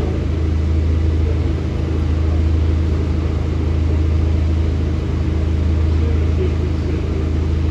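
Bus engine and drivetrain running with a steady low drone, heard from inside the bus.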